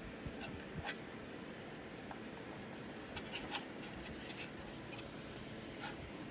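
Scattered light clicks and rubbing of handling noise over a steady background hiss, the clicks bunched about a second in and again between three and four and a half seconds in.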